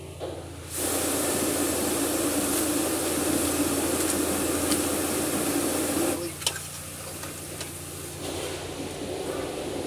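Automatic car wash water jets spraying onto the car, heard from inside the cabin as a loud, even rush that starts about a second in and cuts off suddenly about six seconds in, then builds again near the end. Under it, the car's engine hums steadily at idle, with a single click about halfway through.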